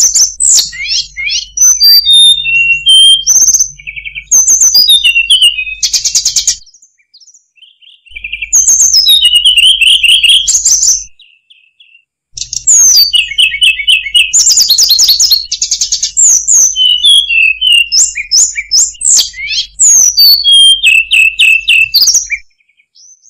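Hill blue flycatcher singing a fast, varied song of high whistled notes, chirps and trills in long bursts. The song breaks off twice briefly and stops shortly before the end, with a faint low hum beneath it.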